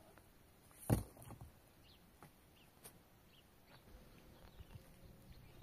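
A single sharp knock about a second in, followed by a few fainter clicks, over faint scattered bird chirps.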